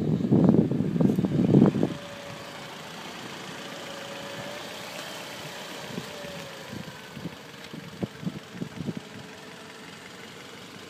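Wind buffeting the microphone for about the first two seconds, then the LPG-converted Toyota Avensis 1.8 Valvematic four-cylinder petrol engine idling steadily under the open bonnet, with a faint steady whine. A few light knocks come in the middle.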